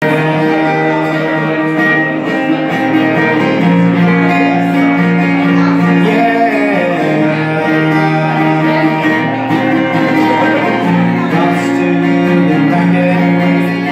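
Acoustic guitar strummed through the instrumental intro of a song, chords changing every second or two.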